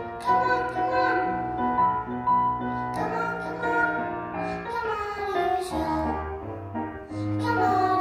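A young girl singing solo into a microphone with piano accompaniment, holding long notes, some sliding down in pitch.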